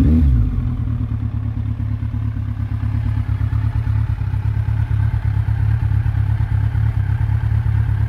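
Kawasaki Ninja motorcycle engine with an aftermarket exhaust: a short throttle blip falls away in the first half second, then the engine idles steadily with a fast, even exhaust pulse.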